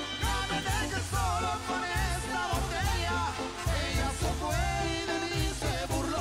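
Banda sinaloense brass band playing an instrumental passage between verses: a steady pulsing bass beat under wavering wind melodies.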